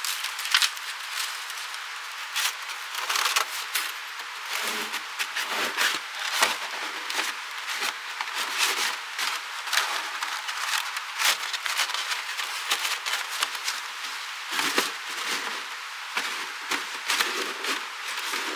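Irregular scraping and clicking as sections of a metal wood-stove chimney pipe are handled, pulled out and fitted together by gloved hands on snow.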